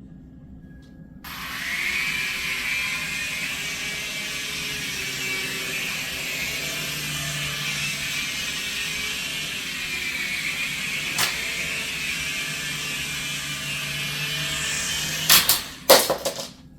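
Mini toy remote-control helicopter in flight, its small electric motors and rotor blades whining steadily, the pitch wavering up and down with the throttle. The whine starts about a second in and stops near the end, followed by a few sharp knocks.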